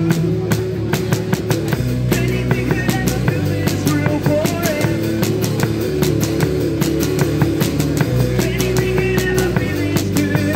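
Live rock band playing, with the drum kit keeping a busy, steady beat under sustained instrument notes.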